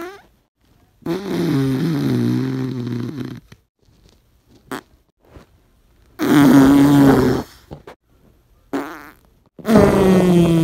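Fart sounds played one after another. There are three long ones, each lasting about one and a half to two and a half seconds, with a wavering pitch that slides downward. Short blips fall between them, and the tail of another fart is heard right at the start.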